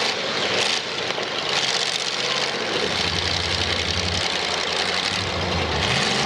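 Big-car demolition derby engines running and revving, with a low engine drone growing stronger about three seconds in.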